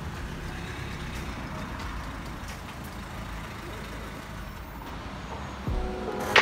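Steady low background rumble and hiss with no speech. Near the end background music begins, with a short sharp swish just before it settles in.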